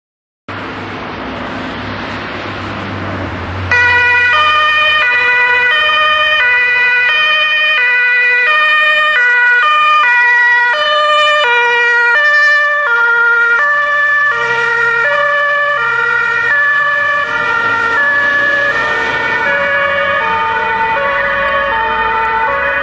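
Vehicle and road noise for the first few seconds. About four seconds in, a fire service command car's two-tone siren starts, alternating a high and a low note, each held about half a second. The car passes with blue lights flashing, and the notes blur with echoes toward the end.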